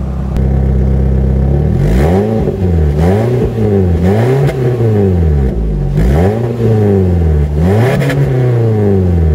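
Perodua Myvi's petrol engine through an aftermarket exhaust with a deep bass note, idling and then revved up and down in several quick blips from about two seconds in, settling back to idle near the end.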